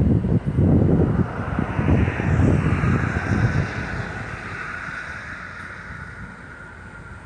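Wind buffeting the microphone in heavy gusts for the first few seconds, then easing off. Under it a faint high hum slowly drops in pitch.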